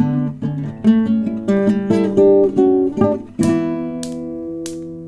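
Acoustic guitar playing a song's instrumental intro: quick picked notes and chord changes, then a chord left ringing from about three and a half seconds in, with a few short hissy hits over it.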